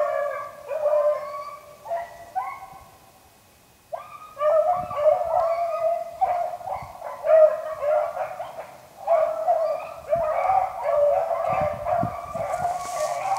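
A pack of beagles baying on a rabbit's trail, several hounds calling over one another. The baying stops for about a second near the three-second mark, then picks up again louder and more crowded.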